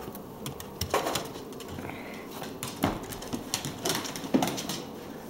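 A dog scrabbling at and shoving its dog bed across a hardwood floor, making irregular scuffs, scrapes and clicks, with the loudest bursts about a second in, about three seconds in and around four seconds in.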